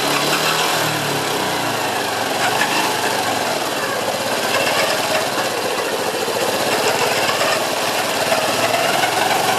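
Honda Cross Cub (JA10) single-cylinder engine running at a steady speed with a rapid mechanical rattle, the abnormal noise (異音) the bike is being checked for.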